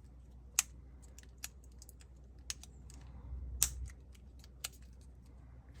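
Sharp little clicks, about five spread out one at a time, from a phone's small plastic and metal parts and tools being handled as the plastic bracket over the motherboard is fitted back into a OnePlus 6T.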